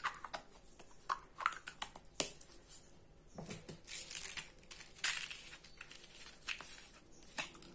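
Small plastic bead containers being handled: screw caps twisted and clicked, and jars knocked and set down against one another on a table, an irregular run of sharp clicks and knocks with brief rustling.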